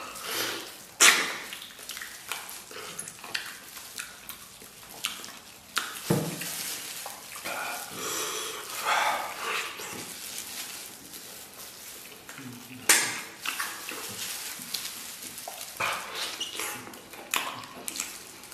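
Close-up eating sounds: wet chewing, smacking and slurping of gelatinous braised beef hoof and tendon, with sticky tearing as the meat is pulled apart by hand. Two sharp smacks stand out, one about a second in and another about two-thirds through.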